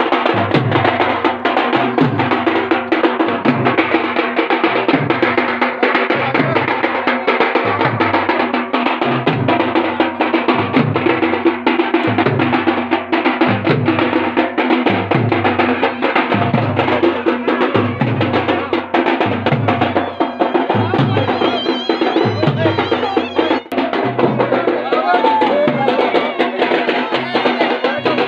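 Dhol drums beaten with sticks in a fast, steady dance rhythm, a deep beat repeating about once a second, with other instruments playing along.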